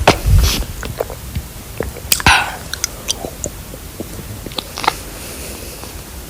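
A person drinking water close to the microphone: scattered wet mouth clicks and one louder swallow about two seconds in, growing quieter near the end.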